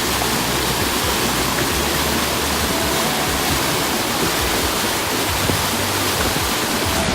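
Loud, steady rushing noise spread evenly from low to high pitch, which cuts off suddenly at the end.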